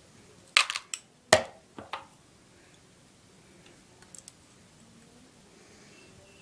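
A few sharp metal clicks and clinks in the first two seconds, the loudest about a second and a half in, then a couple of faint ticks: pliers gripping and working a .22 rimfire cartridge to pull the bullet out.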